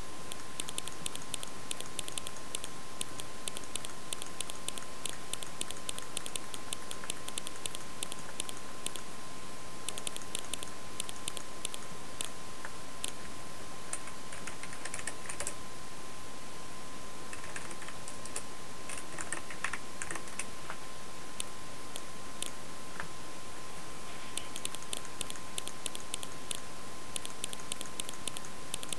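Computer keyboard typing in quick runs of key clicks lasting a few seconds, with short pauses between runs. Under it a faint steady tone and a background hiss continue.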